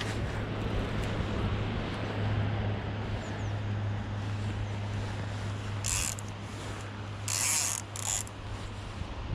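Steady rush of river current, with three short rasping bursts near the end, about six, seven and a half, and eight seconds in.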